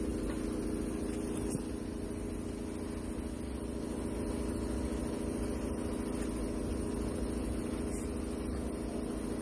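A motor running steadily with an even, pitched hum over a low rumble, and a sharp click about a second and a half in.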